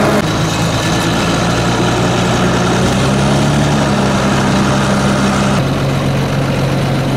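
Fendt Favorit 612 LSA tractor's turbocharged diesel engine running steadily under way, heard from beside the bonnet. Its tone changes abruptly about five and a half seconds in.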